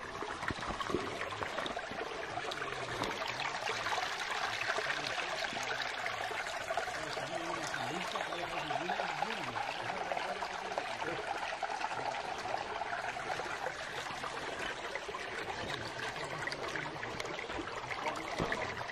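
Small mountain stream trickling over rocks, a steady, even flow of water.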